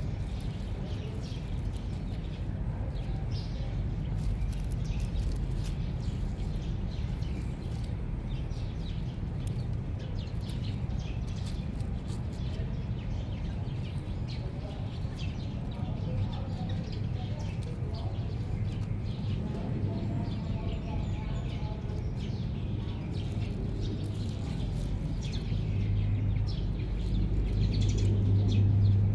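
Small birds chirping over a steady low hum, which grows louder near the end.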